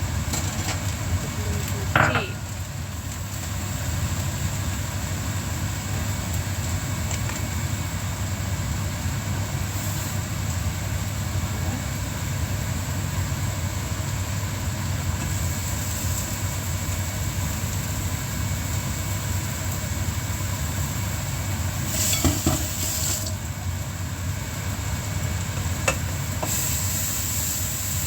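Food sizzling in a cooking pan over a steady low hum, with a sharp knock about two seconds in and a short clatter of a utensil against the pan a little past twenty seconds.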